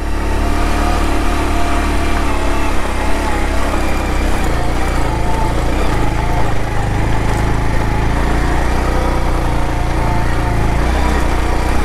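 Motorcycle engine running steadily while the bike is ridden over a rough, stony dirt track, heard from on board the bike.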